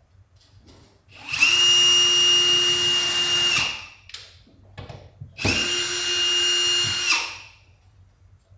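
Power drill driving screws to fix plasterboard: two runs of about two seconds each, the motor whining at a steady pitch and winding down at the end of each run, with a few small clicks between.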